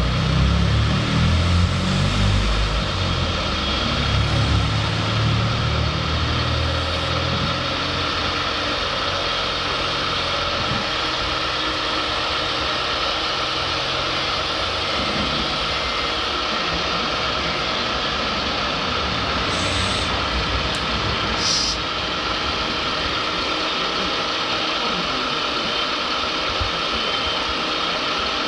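Radio-controlled construction models running: a steady mechanical hum with an engine-like, idling character, heavier and rumbling for the first seven seconds or so. Two brief high clicks come near the end.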